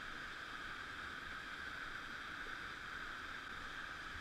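Whitewater river rapid rushing steadily, an even churning hiss of fast water.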